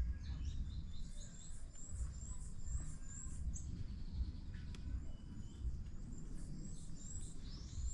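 Small songbird singing: a series of short, high-pitched chirps repeated quickly in a run, followed by another run and a rising note near the end, over a steady low rumble of wind.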